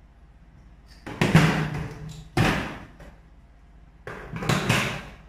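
Tools and parts being handled on a tabletop: three knocks and clatters as pliers are put down and a small computer fan is picked up.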